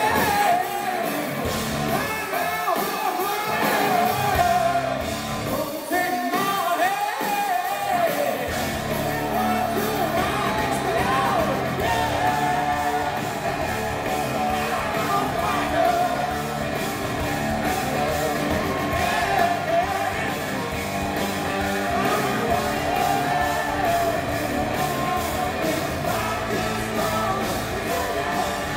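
Live hard rock band playing, with a singer over electric guitars; about eight seconds in the full band's bass comes in under the singing and stays.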